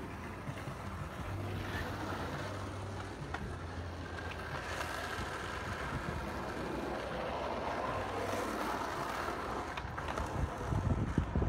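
Wind rushing over the microphone with the steady road and engine noise of a slow-moving car, with a few faint clicks.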